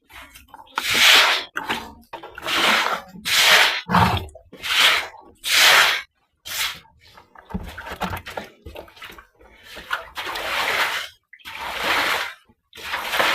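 A brush sweeping standing water across a floor in repeated strokes, about ten swishing, splashing pushes, clearing off excess water left from curing.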